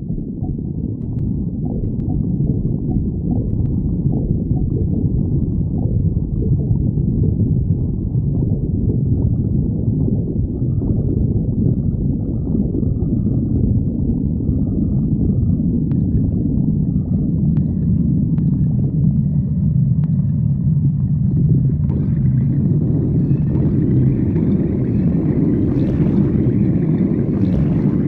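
A person's stomach growling: a long, continuous low rumble, with gurgles that grow brighter in the last several seconds.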